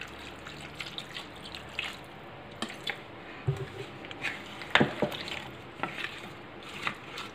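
White vinegar poured from a plastic bottle into a glass bowl of mango pickle. A wooden spoon then stirs the wet pickle, with scattered light knocks against the glass.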